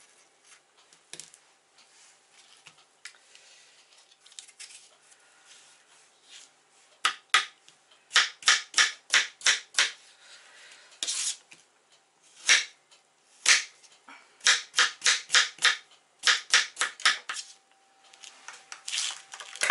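Kitchen knife chopping apple wedges into small pieces on a plastic cutting board. The sharp knocks come in quick runs of about three strokes a second, starting about a third of the way in.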